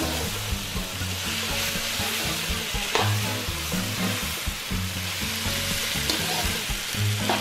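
Lo mein noodles, shrimp and vegetables sizzling in a hot wok as they are tossed and stirred with metal tongs, with a couple of sharp clicks along the way.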